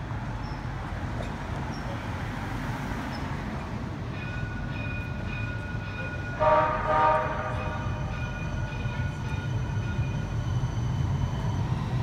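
CAF electric streetcar approaching, its drive giving a steady high whine that grows slowly louder. About six and a half seconds in the streetcar's horn sounds twice in quick succession, a longer blast and then a short toot.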